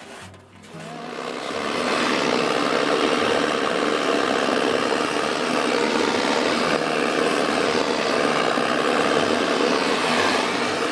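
Gas torch burning with a steady rushing roar as it heats a steel Vespa body panel to tin it with body solder. The roar swells over the first couple of seconds, then holds steady.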